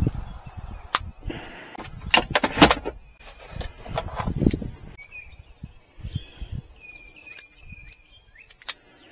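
Handling clatter of tools and loose items: sharp clicks, knocks and rustling as things are picked up and shifted, busiest in the first half, then only a few scattered clicks.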